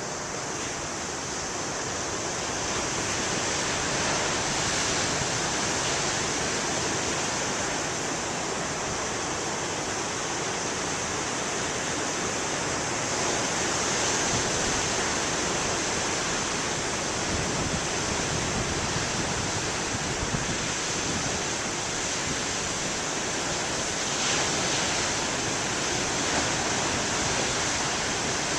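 Big ocean waves breaking in a continuous wash of surf, growing a little louder about two seconds in.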